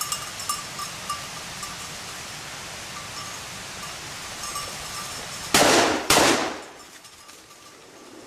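A hunting dog's collar bell jingling irregularly as the dog works the cover, then two shotgun shots in quick succession, a little over half a second apart, about two-thirds of the way in. The shots are much the loudest sound, and the bell is not heard after them.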